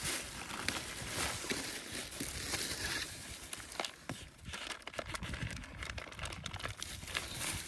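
Rustling and crinkling of handled plastic wrapping, with many small irregular clicks and a low rumble underneath.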